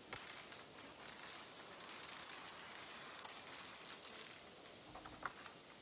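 Clear plastic blister packaging crinkling and crackling in quick, irregular snaps as hands prise a model airliner out of its tray; the crackling thins out after about four seconds.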